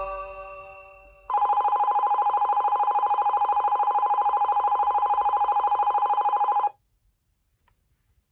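Keihin-Tohoku Line novelty alarm clock ringing: a tune dies away, then a loud, fast-pulsing electronic bell rings for about five seconds and cuts off suddenly.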